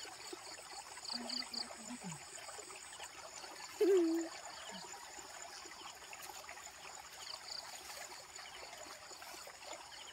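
Tall grass and weeds rustling as someone wades through them and plucks leaves, over a steady high buzz of insects with short repeated chirps. A brief low voice sound about four seconds in is the loudest moment.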